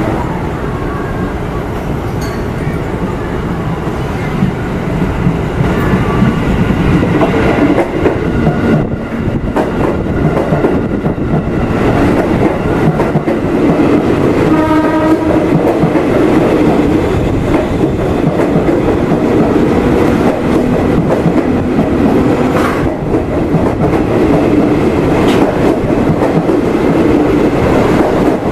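A KRL Commuter Line electric multiple unit (ex-JR 205 series) passes at close range, its wheels and traction motors rumbling and clattering over the track. A short train horn blast sounds about halfway through.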